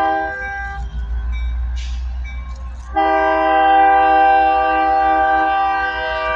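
Diesel locomotive air horn sounding a loud multi-note chord: a blast that fades about a second in, then a long blast from about three seconds in, over the low rumble of the locomotive's engine.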